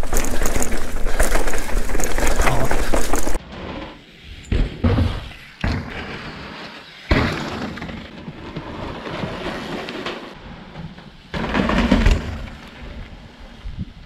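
Full-suspension mountain bike ridden down a dirt trail: loud wind on the microphone and trail rumble for about the first three seconds, then after a sudden drop in level, quieter trail noise broken by several separate thuds and clatters of the bike hitting the ground.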